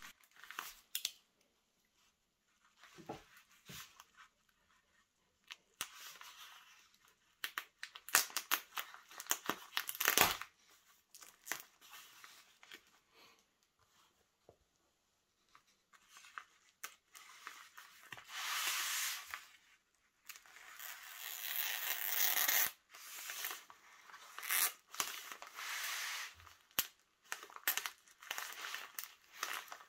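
Black plastic packaging wrap being slit with a small safety cutter and torn and peeled back by hand: irregular crinkling, tearing and scraping, with two longer stretches of louder rustling about two-thirds of the way through.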